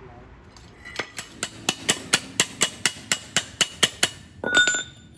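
A hammer tapping on metal, about four quick, evenly spaced ringing blows a second, for about three seconds. Near the end comes a single louder ringing metal clank.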